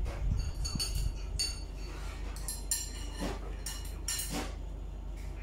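A spoon clinking against a ceramic bowl while food is scooped, about half a dozen light clinks that each ring briefly.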